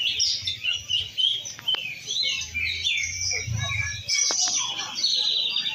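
Many caged contest songbirds singing at once: a dense, overlapping chorus of chirps and whistles, with a fast rattling trill near the end.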